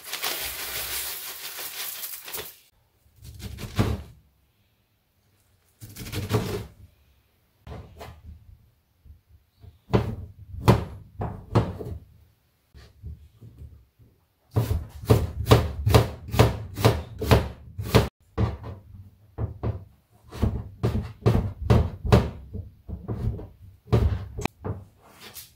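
A kitchen knife chopping zucchini and king oyster mushroom on a plastic cutting board: scattered single thunks, then quick runs of chops at about three to four a second. A brief hiss comes at the very start, as dried seaweed goes into the pot.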